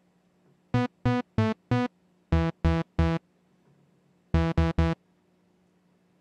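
Short staccato notes from a sawtooth patch on Reason's Thor software synthesizer, layered with a second Thor patch whose inverted filter envelope snaps the filter shut to add punch to each attack. Ten notes in three quick groups (four, then three, then three), each cut off sharply.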